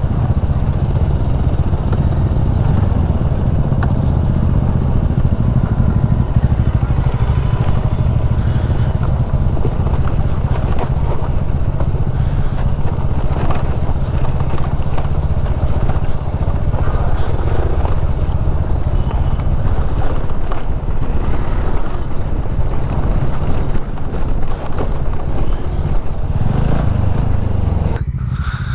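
TVS Ntorq 125 scooter ridden over a rough off-road track: loud wind rumble on the action camera's microphone over the running engine, with frequent small knocks and rattles from the bumps.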